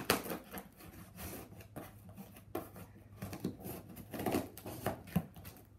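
Scissors cutting into a taped cardboard box: a run of irregular snips, scrapes and scratches, with a sharp snap at the very start.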